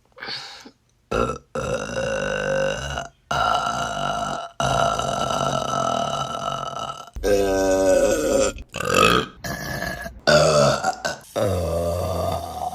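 Women burping one after another: a run of about eight burps with short breaks between them, several of them long, drawn-out burps held on one pitch for two seconds or more.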